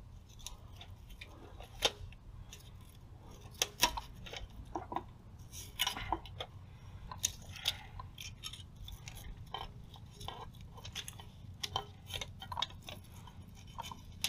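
Hands handling and pressing a fabric step-riser safety panel onto a Velcro strip on an aluminium RV entry step: scattered, irregular light clicks, taps and rustles as it is set in place.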